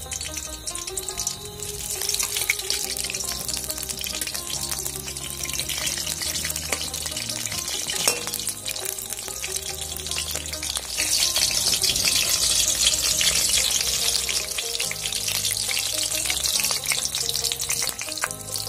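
Gram-flour-battered water lily stem fritters sizzling in hot oil in an aluminium kadai, the sizzle growing louder about eleven seconds in.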